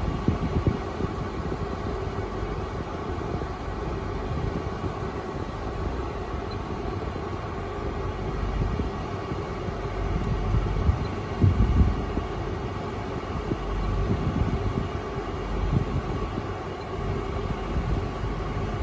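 Car driving: a steady low road and tyre rumble that swells and eases, with a faint constant hum above it.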